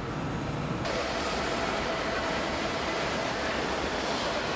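Steady factory-floor noise: an even hiss with a faint steady hum, which cuts in abruptly about a second in.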